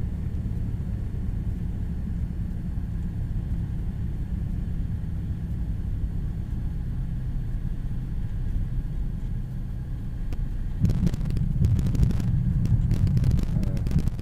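Cessna 172 gliding in with its engine at idle, a steady low rumble of engine and rushing air. About eleven seconds in it turns louder and rougher, with a run of knocks and jolts as the wheels touch down and roll over the bumpy grass runway.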